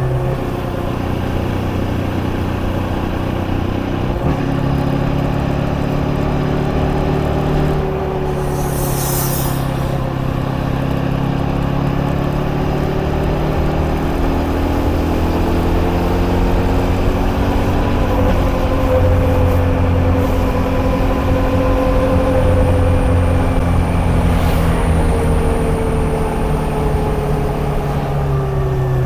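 KTM Duke 250's single-cylinder engine running under way, its pitch rising and falling slowly several times as the bike accelerates, shifts and eases off, over steady wind and road noise. A brief hiss about nine seconds in.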